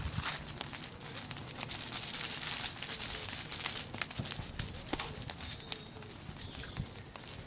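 Bonfire crackling, with irregular sharp pops and snaps over a steady hiss of burning.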